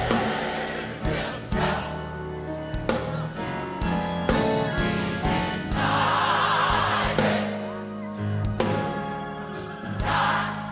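Gospel mass choir singing full-voiced with band accompaniment, the voices swelling loudest about six seconds in and again near the end.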